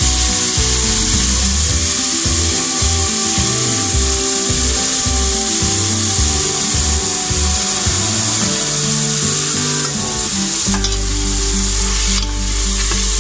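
Ginger-garlic paste frying in hot oil in a pressure cooker, with a steady sizzle, and stirred with a spoon near the end. Background music plays underneath.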